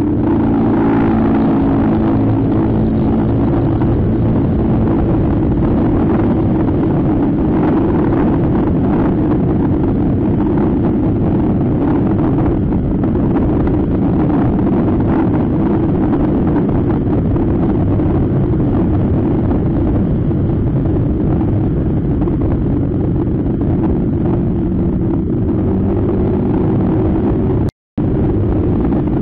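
Scooter engine running at a steady cruising speed while riding, with wind and road noise. The audio cuts out briefly near the end.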